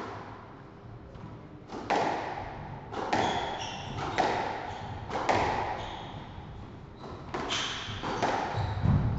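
Squash rally: the rubber ball cracks off rackets and smacks the front wall about once a second, each hit ringing in the enclosed court, with short squeaks of court shoes on the wooden floor between strokes. A heavier low thud comes near the end.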